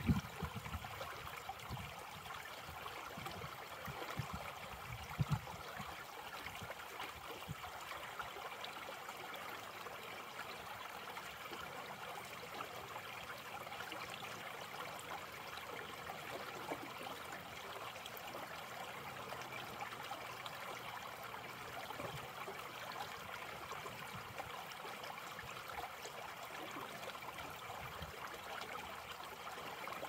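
Shallow creek babbling steadily as it trickles over a small step of stones. A few low thumps come in the first five seconds or so.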